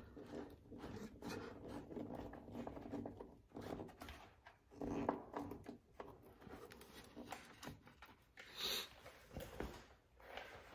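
Faint rustling and small clicks of a door storage bag being handled and pressed against a plastic door panel.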